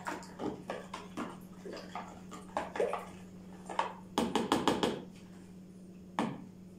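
Metal spoon stirring a liquid batter in a plastic mixing bowl, with scattered clicks and a quick run of about six taps a little past the middle, over a steady low hum.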